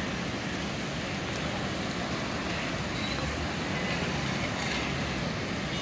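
Steady city traffic noise from wet roads below, an even rumble and hiss.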